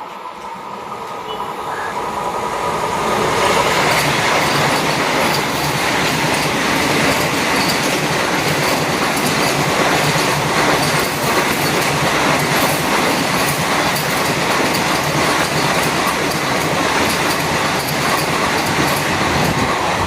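Vande Bharat Express electric trainset passing at speed. A rush of wheel and rail noise builds over the first few seconds, then holds loud and steady with a rapid clatter of wheels over the rail joints.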